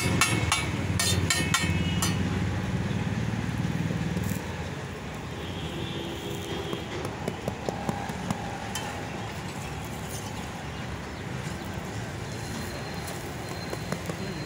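A low, steady engine hum that stops about four seconds in, over street background noise. A metal spatula clicks and scrapes on a flat iron griddle, most in the first two seconds and a few times later on.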